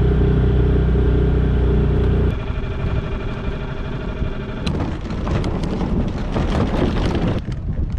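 Small four-stroke outboard motor running steadily; it drops away about two seconds in. From about five seconds in comes a rough rolling and scraping noise as the folding boat is pulled up the launch ramp on its transom wheels.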